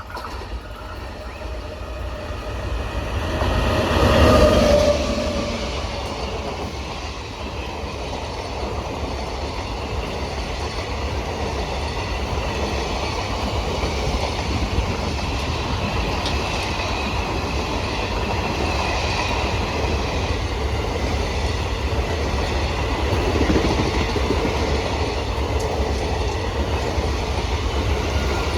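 A train running past, loudest about four seconds in, then a steady rumble as its coaches go by.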